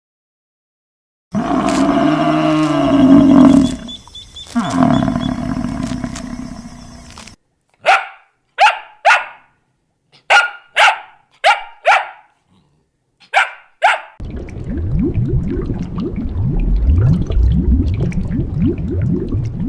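A run of animal calls: a long, loud roar, then a string of about ten short sharp dog barks in quick groups, then a low rough rumbling.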